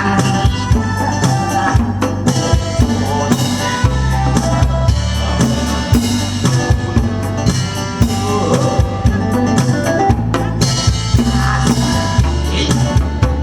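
Background trot music: a steady drum-kit beat with bass drum and snare over a sustained bass line and held instrumental tones, with no singing.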